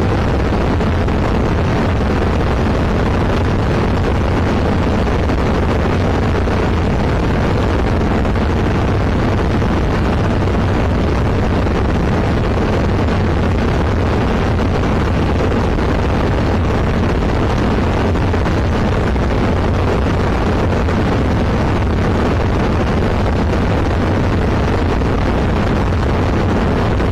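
Steady drone of a Zenith CH701 light aircraft in flight, heard from inside the cabin: engine and propeller noise mixed with airflow. It is loud and unchanging, with most of its weight in a deep low rumble.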